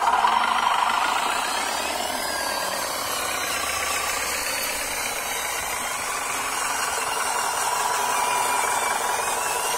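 Radio-controlled model dump trucks driving, their motors and gearboxes giving a steady mechanical running noise.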